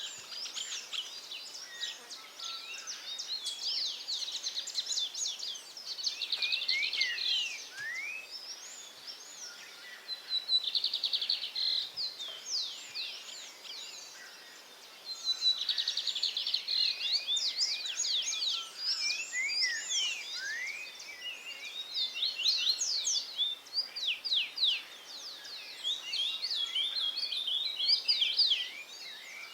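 Songbirds singing: long, fast, varied warbling phrases of quick sweeping notes and buzzy trills, with a short pause about halfway before the song picks up again.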